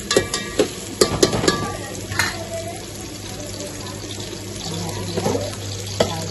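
Sliced onions frying in hot oil in an aluminium pot: a steady sizzle, with a metal spatula scraping and knocking against the pot during the first couple of seconds.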